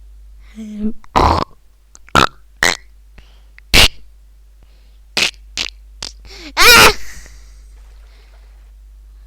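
A string of short comic sound-effect noises: about nine brief separate blasts, with a short low pitched sound before the first and the longest, loudest blast about seven seconds in.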